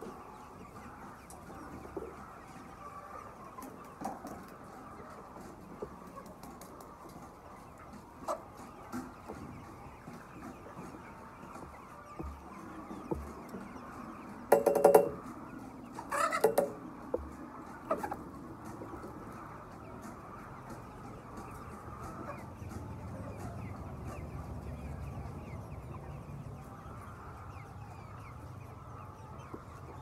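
A large flock of chickens clucking and murmuring steadily. About halfway through come two loud squawks, a second or so apart.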